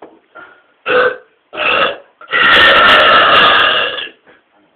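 A man burping loudly: two short burps, then a long one lasting nearly two seconds, the loudest of the three.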